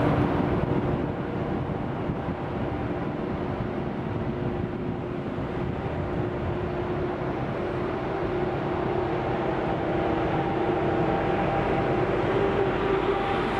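DB Class 147 electric locomotive hauling an Intercity 2 double-deck train as it approaches slowly: a steady running hum with a few held tones over rail and wheel noise, growing a little louder near the end.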